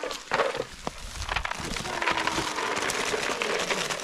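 Acorns being poured into a plastic bag: a dense clatter of nuts knocking together with plastic rustling, a short spill near the start and a longer, steadier pour through the second half.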